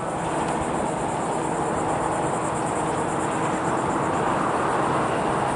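Steady rushing outdoor background noise, even throughout, with a faint steady hum underneath.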